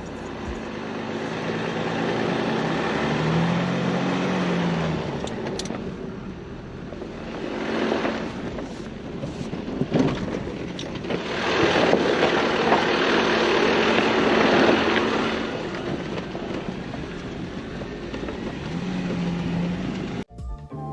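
Off-road vehicle driving on a trail: engine running with road and tyre noise, swelling louder a couple of times, with a sharp click about halfway through.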